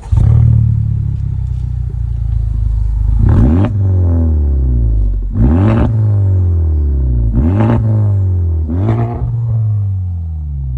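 Honda Civic Type R's turbocharged 2.0-litre four-cylinder, fitted with a catless front pipe, downpipe and HKS exhaust, running loud under hard acceleration. Its pitch breaks sharply four times, about two seconds apart, typical of quick gear changes.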